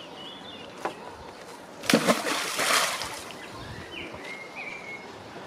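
A fishing magnet on its rope thrown into the river, landing with a splash about two seconds in; the splash and spray die away over about a second.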